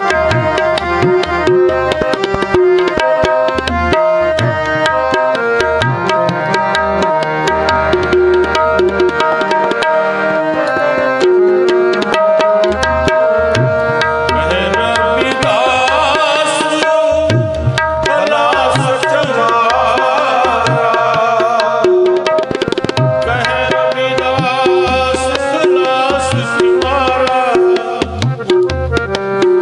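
Harmoniums play a sustained melody over tabla drums keeping a steady rhythm, in an instrumental passage of devotional kirtan music.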